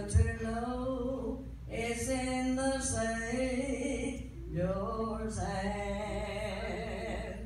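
An older woman singing a gospel song into a handheld microphone: three long phrases of held, wavering notes. A brief low thump right at the start.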